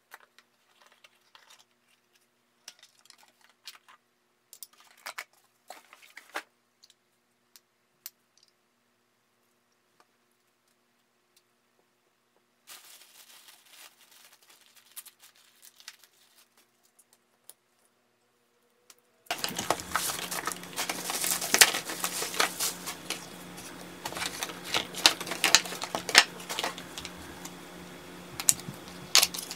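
Plastic mailer bags and packaging rustled and crinkled by hand in scattered crackles. About two-thirds through, the handling gets much louder and denser, with many sharp crackles over a steady low hum.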